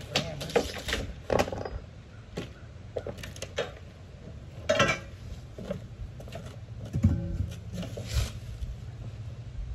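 Steel gantry parts and their cardboard and plastic packaging being handled: irregular knocks, clinks and rustles, with a couple of louder clanks near the end.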